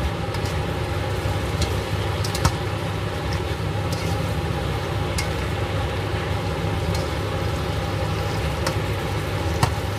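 Metal tongs stirring and tossing basil leaves and bell pepper in a nonstick frying pan, with a few sharp clicks of the tongs against the pan, over a steady low hum.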